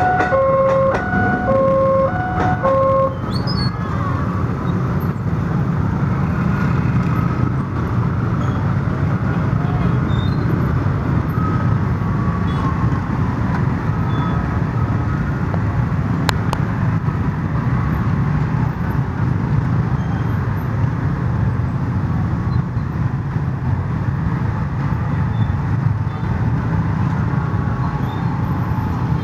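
Level-crossing warning alarm sounding an alternating two-tone electronic signal that stops about three seconds in, as the commuter train clears the crossing. A steady din of motorcycles and cars follows, idling and then moving over the tracks.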